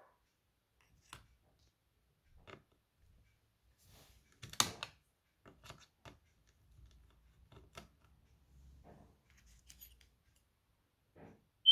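Scattered small clicks and taps from handling a laptop's case and parts, one sharper click about halfway through.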